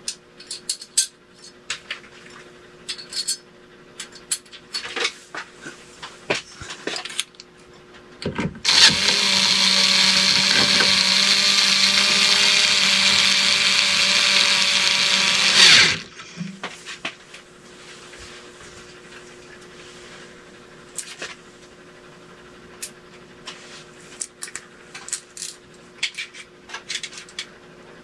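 Scattered handling clicks and knocks, then a power drill runs steadily for about seven seconds, starting about nine seconds in and cutting off sharply, driving screws for a ceiling fan's mounting bracket. More light clicks and taps follow.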